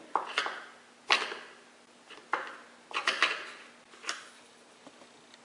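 Flathead screwdriver prying at the gear on a Wayne Dalton TorqueMaster spring end bracket, working it loose: about seven sharp clicks and scrapes at irregular intervals, fading out near the end.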